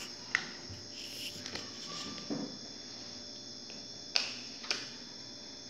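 Steady high-pitched insect trilling, like crickets, broken by a few sharp clicks, the loudest ones about four and a half seconds in.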